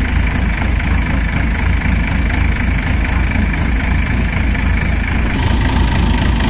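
Large diesel engine idling steadily, a loud even low drone.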